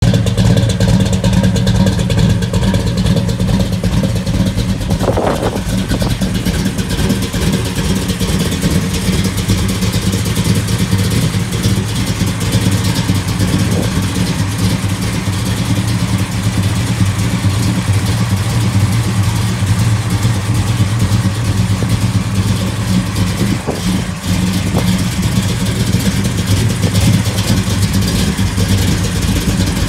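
1969 Chevrolet Chevelle SS 396's V8 engine idling with a steady, deep, loud exhaust growl; the pitch holds even, with no revving.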